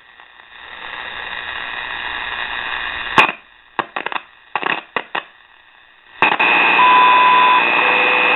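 Soundesign portable shortwave radio on the 5 MHz time-signal station, its sound swinging as the long-wire antenna lead is touched to the whip. Static hiss swells, then there is a sharp click and a few crackles in near quiet. About six seconds in the signal comes in loud with hiss, a high beep of under a second, then a lower steady tone: the station's minute tone.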